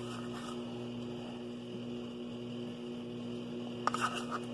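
Steady electrical hum. Near the end comes a brief clatter of scrapes, a spoon scraping pudding out of a plastic snack cup.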